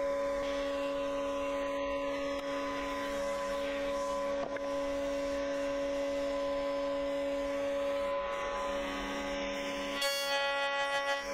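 Router in a router table running with a steady whine while a board is fed across a dovetail bit in two passes. Near the end the sound grows louder as the bit takes an extra bit of material on the second pass, the sign that the board is off centre.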